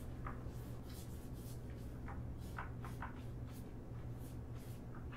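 Wet paintbrush swept back and forth across the back of a sheet of watercolor paper, a string of soft scratchy strokes a few tenths of a second apart, over a steady low hum.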